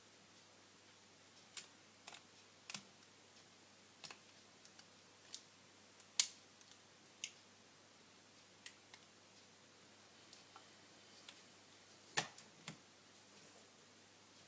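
Irregular sharp clicks and taps of small tools and parts being handled while working on an Asus ZenFone 5 smartphone, with the two loudest about six and twelve seconds in.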